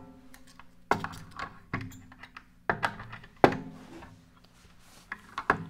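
Irregular knocks and clicks as parts of a Wicked Edge guided knife sharpener are handled, about eight in all; several hits ring briefly.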